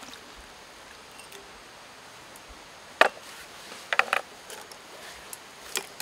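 A utensil knocking and clinking against a stainless steel Sierra cup on a camp gas burner as the drink in it is stirred: one sharp knock about three seconds in, a quick run of clicks a second later, and one more near the end, over a faint steady hiss.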